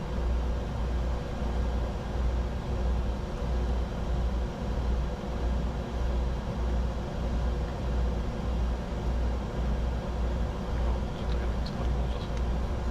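Steady cockpit noise of a Bombardier Challenger 605 in flight: airflow and engine hum, with a low drone that pulses about twice a second.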